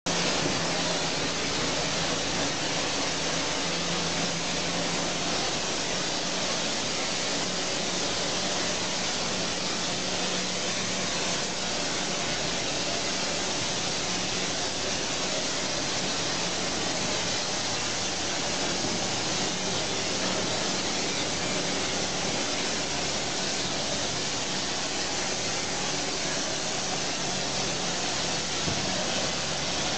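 Spray lance on a hose hissing steadily as it sprays hoof disinfectant over the stall floor and the cows' feet, with a steady low hum underneath.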